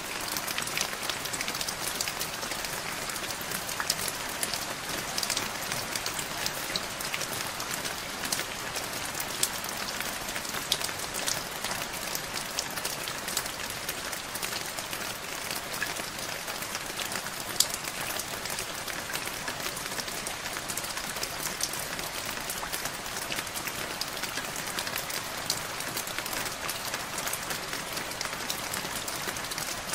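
Steady rain, an even patter of drops with many small sharp drip ticks and one louder drip about two-thirds of the way through.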